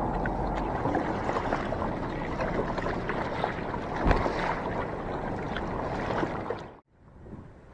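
Water washing and splashing around a kayak's hull, with small knocks and one louder thump about four seconds in; it cuts off abruptly near the end.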